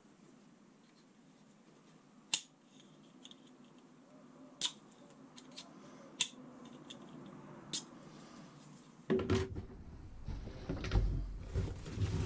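Plastic side-release buckle on a Maxpedition Proteus Versipack nylon hip pack clicking as it is worked: a few sharp snaps a second or two apart. About three-quarters of the way through, the bag is lifted and moved on the wooden bench, with louder rustling and bumps.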